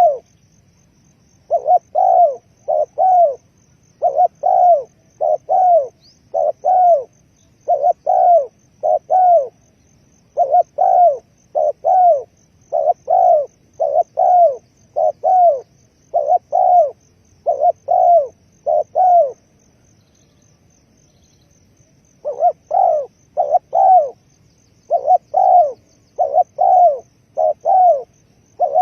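Spotted dove cooing, short arched notes mostly in pairs, repeated at a steady pace, with a pause of a few seconds about two-thirds of the way through.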